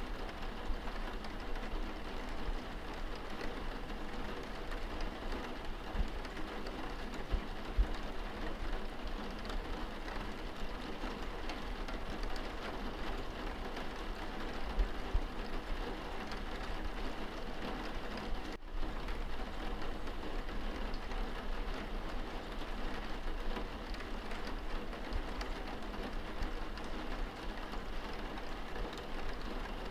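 Steady rain falling on window glass, heard from indoors as a dense even patter with a low rumble underneath. There is a momentary break about two-thirds of the way through.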